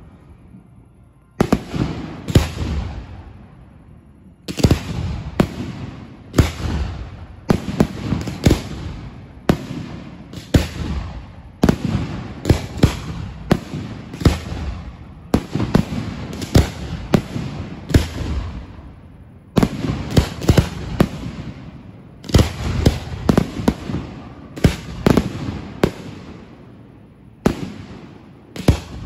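Fireworks going off: a long run of sharp bangs in quick clusters, several a second, each followed by a rumbling, echoing tail, with brief lulls between clusters.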